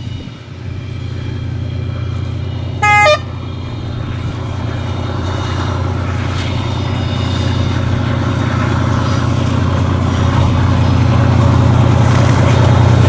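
ÖBB class 2143 diesel-hydraulic locomotive approaching under power, its diesel engine drone growing steadily louder. It gives one short horn blast about three seconds in.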